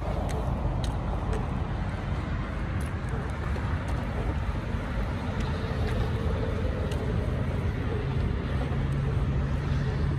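Steady noise of traffic on an adjacent elevated freeway, tyres and engines blending into a continuous wash, with a low engine hum standing out near the end.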